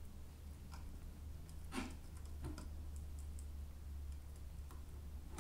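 Faint scattered clicks and ticks of a small screwdriver pressing open spring cage-clamp connectors on a circuit board as wires are pushed in, over a low steady hum; the clearest click comes a little under two seconds in.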